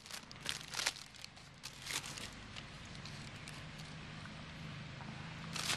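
Short handling clicks and rustles as the camera and things around it are moved, several in the first two seconds and one more near the end, over a faint low steady background hum.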